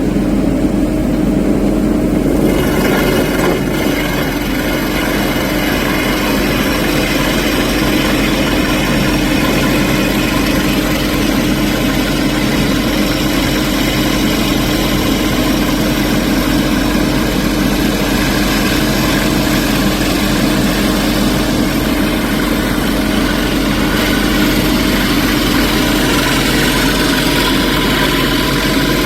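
Engine of heavy construction machinery running steadily at a constant speed, with no impacts.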